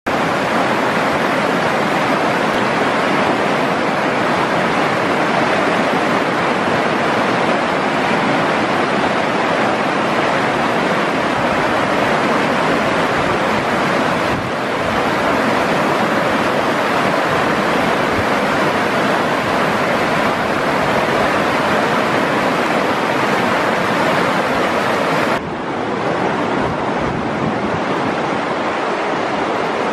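River water rushing over rocks in shallow rapids: a loud, steady rush. About 25 seconds in it cuts suddenly to a slightly quieter, less hissy rush.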